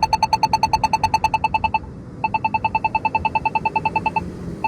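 Polara iNS2 accessible pedestrian signal push button giving its rapid tick, about ten sharp beeping ticks a second. The ticking comes in runs broken by two short pauses. It signals that the walk interval is on, in place of a spoken walk message.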